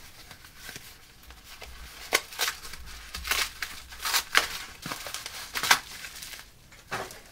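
Battery packaging crinkling and tearing as a LiPo pack is unwrapped, with a run of sharp crackles from about two seconds in.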